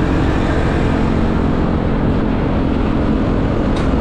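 Steady wind rushing over the action camera's microphone on a moving Yamaha Aerox scooter, with the scooter's engine running underneath.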